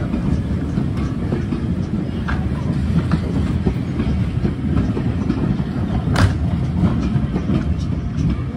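Vintage wooden-bodied railway carriages rolling past along a platform: a steady low rumble of wheels on rail, with scattered clicks and one sharper click about six seconds in.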